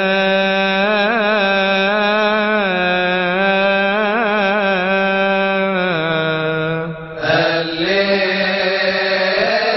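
A solo male voice chanting a long wordless melisma in the style of Coptic Orthodox psalm chanting. He holds sustained notes with small ornamented turns, breaks briefly for breath about seven seconds in, then carries on.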